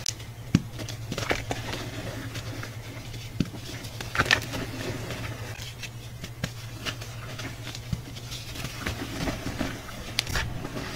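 Fingers pressing into and crumbling a block of hydrophobic chalk in a bowl of loose chalk powder: soft crunching and crackling with scattered sharper clicks. A steady low hum runs underneath.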